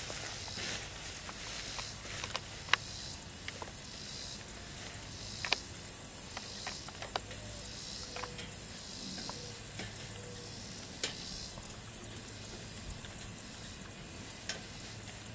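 Sharp metallic clicks and clinks of a wire cage live trap being handled, scattered every second or two over a steady hiss.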